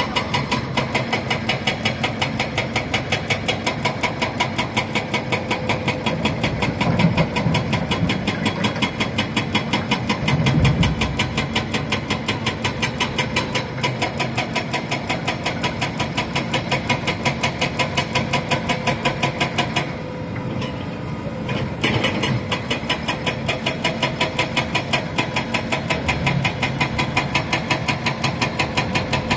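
Heavy diesel engine of an excavator or dump truck running steadily with a fast, even pulsing beat. Two heavier low swells come about a third of the way in, and the sound briefly dips about two-thirds of the way through.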